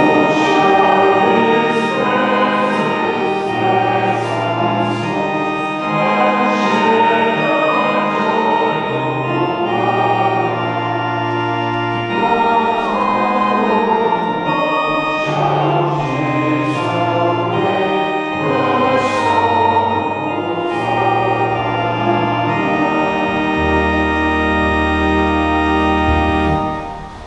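Church organ playing slow, sustained chords over a stepping pedal bass, ending on a long low pedal note held under the final chord, which is released just before the end.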